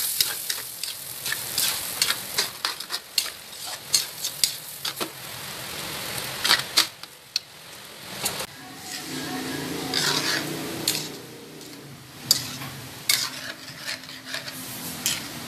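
Metal spatula stirring in a metal wok, scraping and clinking irregularly against the pan, over liquid boiling and hissing in the wok.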